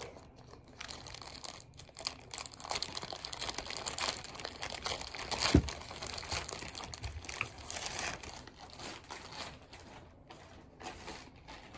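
Plastic packaging crinkling and rustling as it is handled and pulled off the clubs, with one sharp knock about halfway through.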